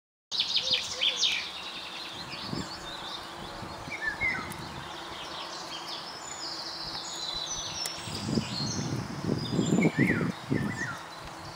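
Songbirds chirping and calling in short high notes over steady outdoor background noise, with a run of low, uneven thuds from about eight seconds in.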